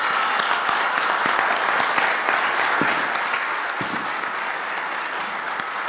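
Audience applauding in a hall: many hands clapping steadily at the close of a speech.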